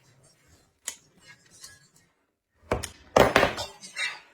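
Scattered knocks and clatter of handling: a sharp click about a second in, then a cluster of heavier knocks around three to four seconds in.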